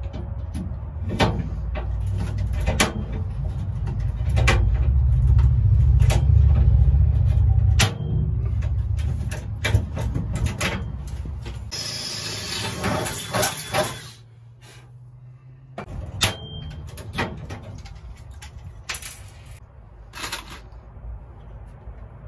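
DeWalt cordless drill boring through aluminium angle for about two seconds midway, among scattered clicks and knocks of tools and metal parts being handled. A loud low rumble fills the first eight seconds and stops suddenly.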